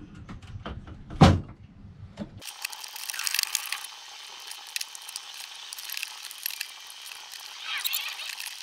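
Thin plywood kit parts of a model boat frame being handled and turned over: light wooden clicks and knocks, with one sharper knock about a second in. After that, a thin hiss with small rapid clicks.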